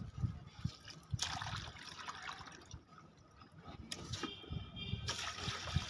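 Water poured from a plastic mug onto the soil of potted plants, splashing and trickling: one pour starting about a second in and tailing off, and another near the end.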